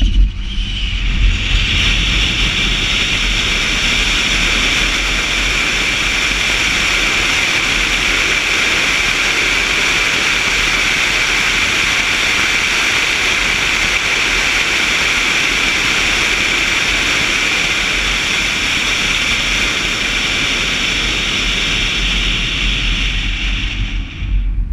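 Steady rushing wind noise over a camera mounted on the outside of a car running flat out down a drag strip, with a low road rumble beneath. It cuts off suddenly near the end.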